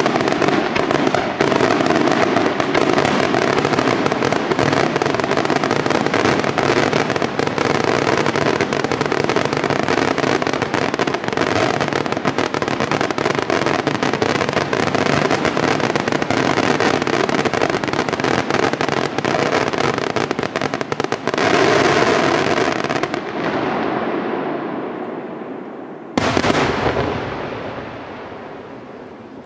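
Aerial fireworks display at full intensity: a dense, unbroken barrage of shell bursts that dies away over the last few seconds, with one last loud bang near the end.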